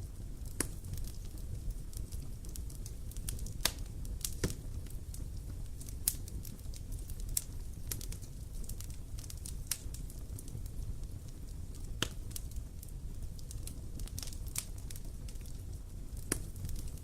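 Campfire burning, with irregular crackles and occasional sharper pops of burning wood over a steady low rumble.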